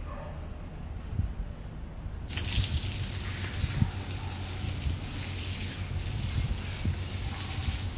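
Water gushing in a steady hiss that starts abruptly about two seconds in, with a few soft low thumps.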